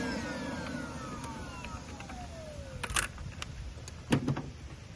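A whine falling steadily in pitch over about three seconds as the Mazda RX-8 spins down after a start attempt, then two short knocks.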